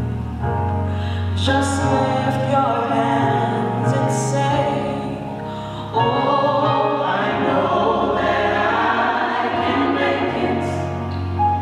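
A female lead singer sings a gospel song into a microphone, blending with other voices in a choir-like sound over sustained low notes. The sound jumps louder and fuller about six seconds in.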